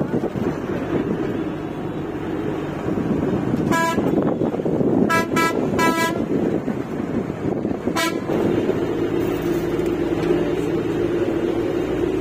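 A vehicle horn honks five short times between about four and eight seconds in, over the steady engine and road rumble of a bus on a mountain road. Toward the end the engine settles into a steadier hum.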